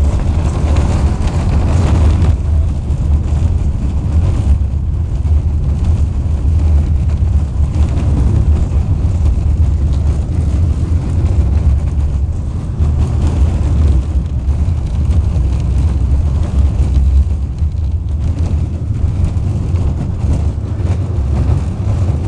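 Cabin noise of a KTM-19 tram under way: a loud, steady low rumble from the moving car and its running gear.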